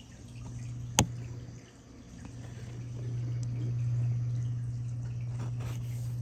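Reef aquarium running: water trickling and dripping over a steady low hum, the hum swelling louder midway, with one sharp click about a second in.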